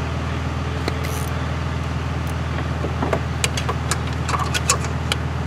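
Light metallic clicks and clinks of a bolt and a 7/16-inch wrench being handled and fitted, mostly from about three seconds in, over a steady low mechanical hum.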